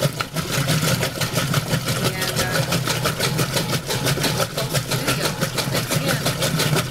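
Roper top-load washing machine in its agitate cycle: a steady motor hum with a fast, even clatter of about seven clicks a second. This is the clunking from the agitator that the owner is troubleshooting.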